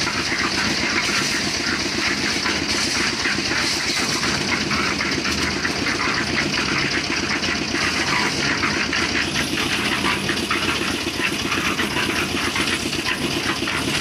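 Portable concrete mixer running steadily, its motor and turning drum making a continuous mechanical noise with a fast, even pulse.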